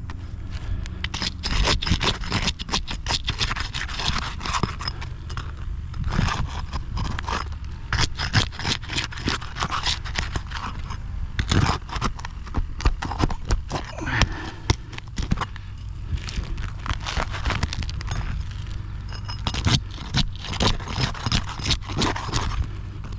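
Asphalt roof shingle being worked loose: irregular scraping and clicking as its nails are pried out.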